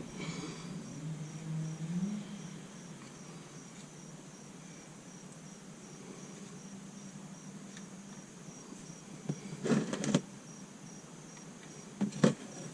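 Crickets chirping steadily, with a few sharp clicks from a ratchet and socket working the oil drain plug loose, about ten seconds in and again near the end.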